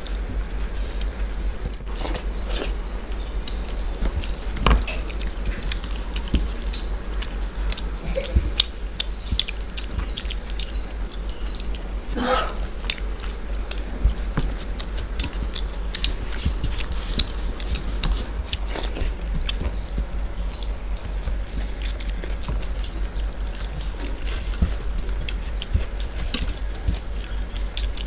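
Close-miked eating: chewing and mouth sounds with fingers mixing soft khichuri on steel plates, giving many short scattered clicks, over a steady low hum.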